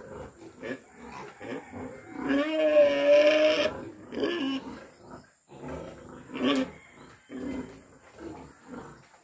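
Pigs grunting again and again while a boar is mounted on a sow during mating, with one longer drawn-out call about two seconds in.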